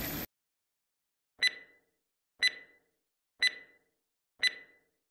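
Four short, identical electronic beeps, evenly spaced one a second, over dead silence.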